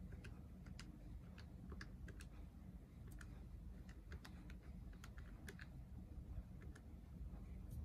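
Keys of a Canon scientific calculator pressed one after another: a run of faint, irregular plastic clicks, about three a second.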